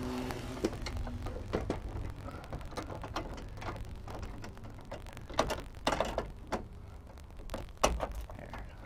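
Steel chain of a homemade mirror bracket clinking and rattling against the truck's door frame and bracket as gloved hands work it into a locking position. Irregular clicks and knocks throughout, with a cluster a little past the middle and the loudest knock near the end.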